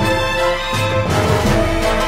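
Background music with held notes that change about every second.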